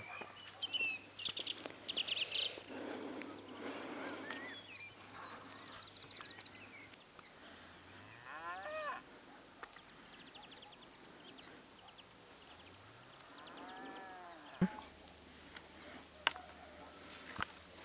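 Cattle mooing, two drawn-out calls about eight and fourteen seconds in, with a few sharp knocks near the end.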